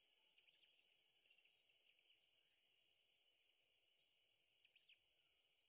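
Near silence, with only a faint high chirping in the background.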